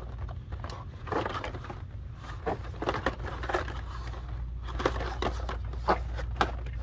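Plastic blister-pack toy packages crinkling and rustling as a hand pushes through them on store peg hooks, in a string of short rustles and clicks.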